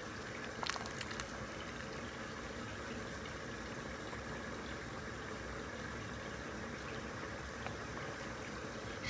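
A pot of rice boiling steadily in water as it parboils, with a light click under a second in.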